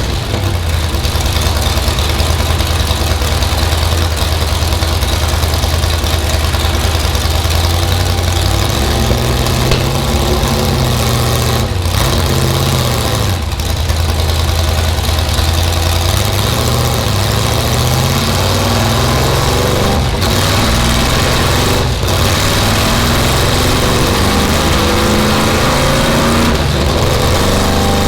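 A 500 hp Chevrolet small-block V8 in a Lola T70 race car idles loudly. From about ten seconds in, the throttle is blipped several times and the pitch rises and falls before settling back to idle.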